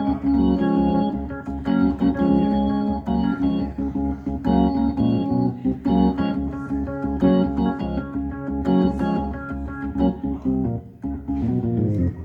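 Organ played in full chords, sustained stacked notes that change every half second or so with short breaks between phrases, being tried out through the church's sound system during a sound check.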